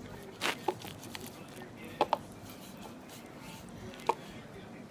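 A spoon knocking and scraping against a bowl while stirring borax slime, with a handful of sharp taps: two pairs and a single one.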